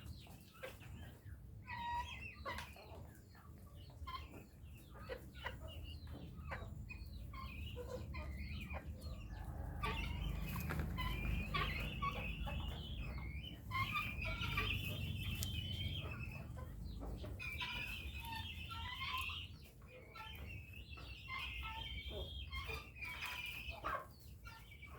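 Chickens clucking and calling, with many short calls and clicks at first, and a busier stretch of high-pitched calls from about ten seconds in.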